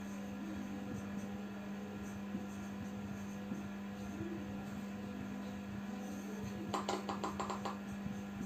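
A steady low electrical hum over room noise. About a second and a half before the end comes a quick run of about eight sharp clicks in under a second.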